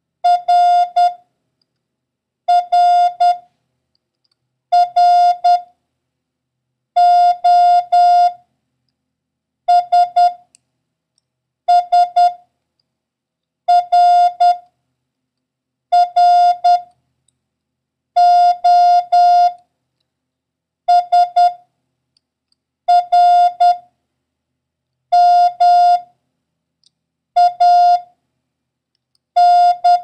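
Morse code practice tones: one steady pitch near 700 Hz keyed in dots and dashes, sending single letters about two seconds apart in a copying drill of the letters R, O and S.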